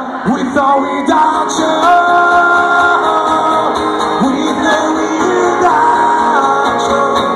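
Live rock band playing with singing over guitar, the voice holding long notes that slide between pitches, heard from within a large crowd.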